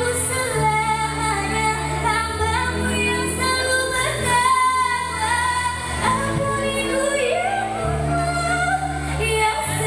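A teenage girl sings solo into a handheld microphone over an amplified instrumental backing of low sustained chords, holding long notes.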